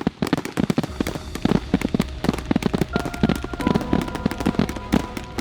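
Fireworks popping and crackling in rapid succession, with music coming in about halfway through.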